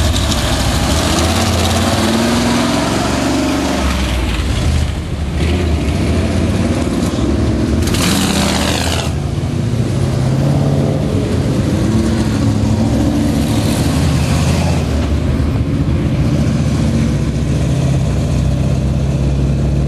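Engines of lifted Chevy K5 Blazers and pickups running as the trucks drive past close by one after another, the engine note rising and falling as they pull away. A brief rush of noise about eight seconds in.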